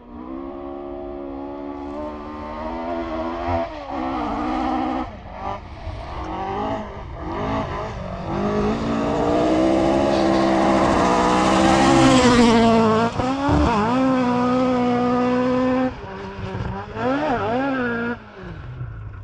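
Rally car engine at full throttle heard onboard, pulling up through the gears with the pitch stepping down at each shift. It is loudest on a long pull about ten to twelve seconds in, then the driver lifts off sharply, with quick throttle blips on downshifts near the end.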